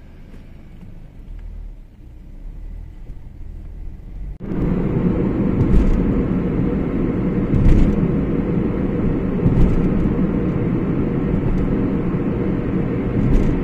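Nissan March 1.5 on the move: a low, fairly quiet rumble at first, then about four seconds in a sudden jump to loud, steady road and wind noise of the car driving at speed.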